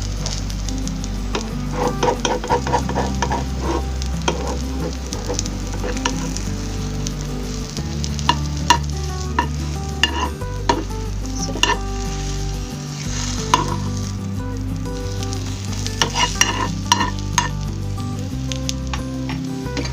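Egg-wrapped sausages frying in hot oil in a pan, sizzling steadily, with a cooking utensil clicking and scraping against the pan in flurries, a fast run about two seconds in, more around the middle and again near the end.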